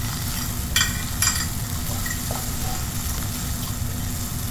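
Tuna and spice mixture sizzling in a frying pan over low heat while a spatula stirs it, with two sharp clicks of the utensil against the pan about a second in.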